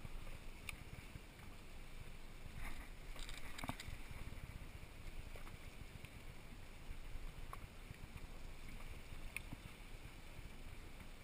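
Low, steady rumble of a sportfishing boat's engines with water moving along the hull, with a few faint clicks.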